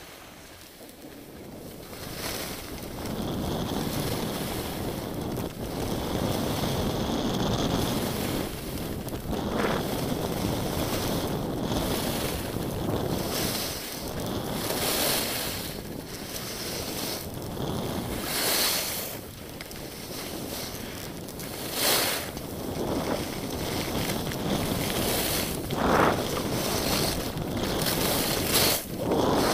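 Skis scraping and hissing over packed snow with wind rushing over the microphone during a downhill run. The noise is quieter for the first two seconds, then swells in surges every few seconds.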